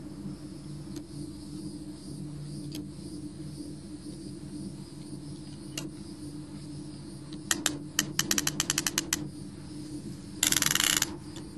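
ElectroBraid tensioning ratchet clicking as the fence braid is pulled tight: a few single clicks, then a quick run of about nine clicks a second some seven seconds in, and a short dense rasp near the end, over a low steady hum.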